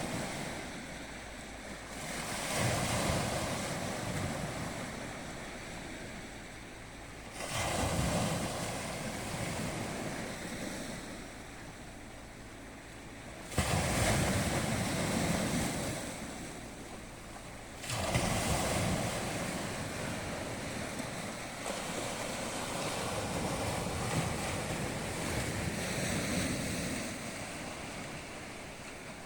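Sea surf: waves breaking and washing in, a new surge of rushing water every four to six seconds and easing off between.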